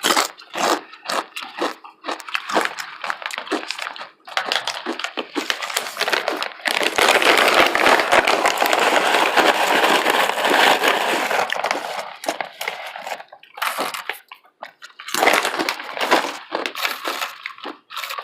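Crunching and chewing of chips close to the microphone: sharp crunchy clicks through the first few seconds and again near the end, with a dense crackling stretch from about four to twelve seconds in.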